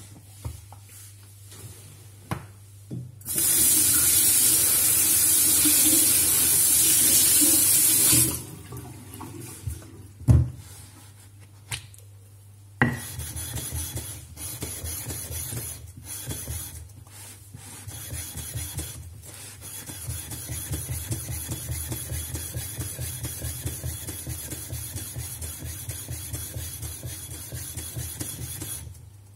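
Tap water runs for about five seconds as the stone is rinsed, and a sharp knock follows. Then a ceramic sharpening stone is rubbed back and forth on a diamond lapping plate in quick, even scraping strokes, lapping its face flat.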